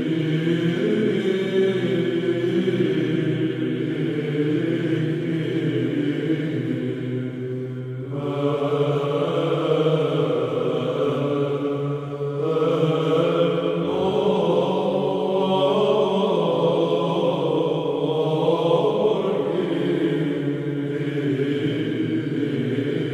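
Background music of slow vocal chanting over a steady held low note, the chanted line changing phrase about eight and twelve seconds in.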